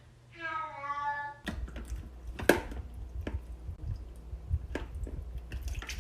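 A cat meows once, a drawn-out call with a bending pitch. The sound then cuts to a low rumble with scattered knocks and clicks.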